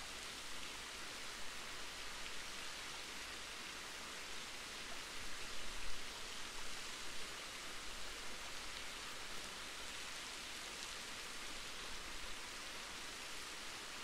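Awosting Falls waterfall: the steady rush and hiss of falling water, swelling slightly about midway.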